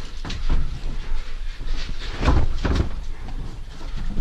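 Rustling movement with a few dull knocks and thuds, the loudest two close together about two and a half seconds in.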